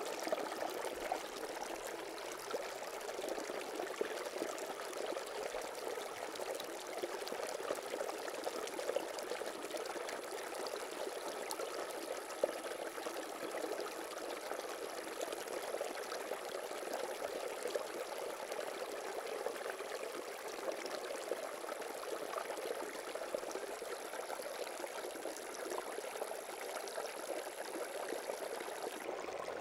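Steady running, pouring water, an even, unbroken wash of sound.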